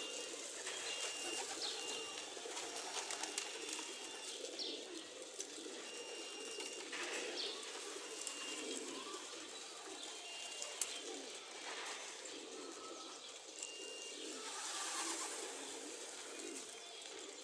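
Racing pigeons cooing at their loft in a low, wavering murmur, with short high chirps repeating over it.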